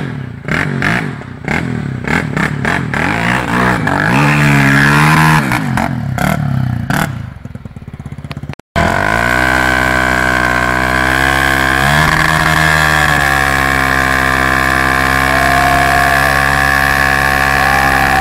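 Honda XR250 Tornado single-cylinder four-stroke dirt bike with an aftermarket Belparts exhaust. It is first ridden with the revs rising and falling, over scattered clicks and crackles. After a sudden break about nine seconds in, it is held at steady high revs, dipping briefly once, while its rear wheel spins in muddy water and throws up a spray.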